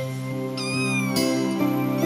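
A cat meowing with falling glides in pitch, over background music with sustained notes.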